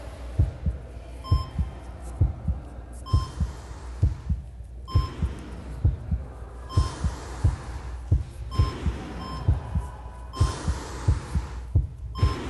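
Heartbeat sound: deep thumps in steady lub-dub pairs, a little over one beat a second, over a low hum, with a short high beep about every two seconds.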